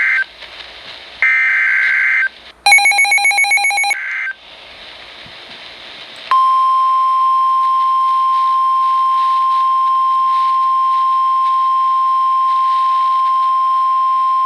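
Emergency Alert System broadcast on NOAA Weather Radio: the screeching digital header bursts of a new alert, one of them overlaid by a rapidly pulsing buzz, then a pause of hiss and the steady single-pitch 1050 Hz weather radio attention tone from about six seconds in. This is the signal that a warning message is about to be read.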